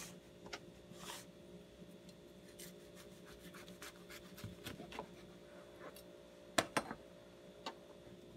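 Kitchen knife sawing through a sandwich on a plastic cutting board: soft rasping strokes with many quick fine crackles, then two sharp knocks about six and a half seconds in.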